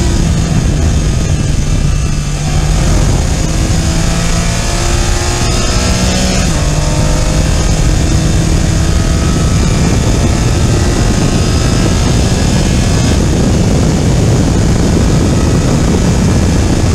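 Porsche Cayman GT4 Clubsport's flat-six at full throttle from inside the cockpit, rising in pitch as it revs and dropping back at two upshifts, with wind and tyre noise underneath.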